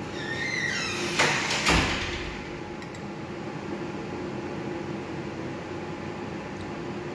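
Video slot machine playing Double Frootastic: a short electronic chirping jingle, then two sharp knocks about half a second apart as a spin is started, followed by a steady hum while the reels spin and stop without a win.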